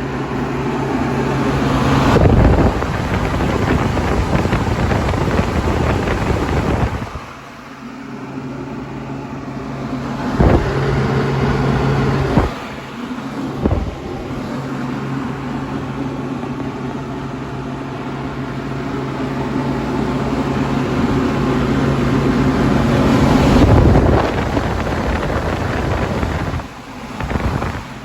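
National Comfort Products 1000 Series through-the-wall central air conditioner condensing unit running: a steady compressor hum under the rush of the condenser fan. The owner believes the compressor is a scroll. A few brief knocks and a short duller stretch break in about a third of the way through.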